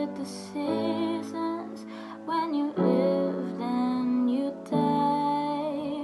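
A slow song: upright piano chords with a woman singing long, wavering held notes over them.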